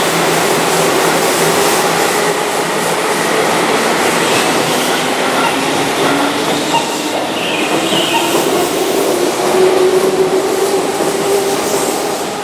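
Keihan 2400 series electric commuter train moving along a station platform: a steady running noise of wheels on the rails, with a motor hum that climbs in pitch over the second half.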